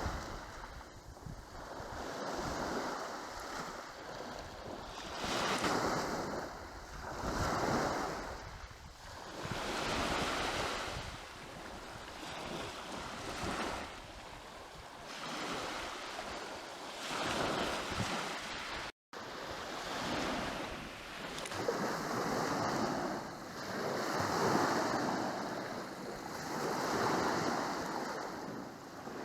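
Sea waves washing onto the shore, swelling and falling back every two to three seconds, with wind buffeting the microphone. The sound cuts out for a split second about two-thirds of the way through.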